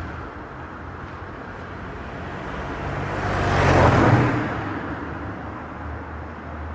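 A motor vehicle passing by, its engine and road noise swelling to a peak about four seconds in and then fading away.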